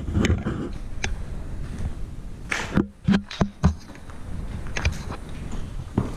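Footsteps crunching and knocking over rubble and broken plaster on a concrete floor, with a quick run of four heavier thuds near the middle.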